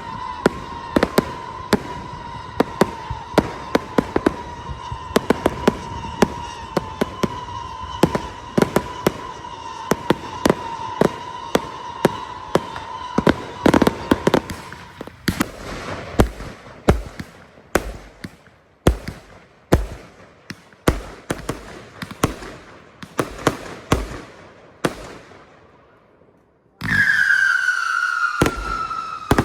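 Fireworks going off: rapid crackling pops over a steady whistle for the first half, then separate bangs with low booms. A loud, falling whistle starts near the end.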